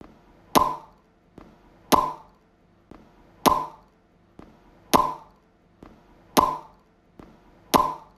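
A short pop sound effect, played six times about one and a half seconds apart, each pop with a faint tick just before it: one pop for each cartoon picture popping onto the screen.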